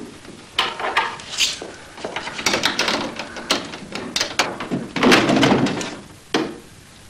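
A wooden, glass-fronted gun cabinet being worked open by hand: a string of clicks, knocks and rattles of wood and glass as its door is unlocked and swung open, with a louder clatter about five seconds in.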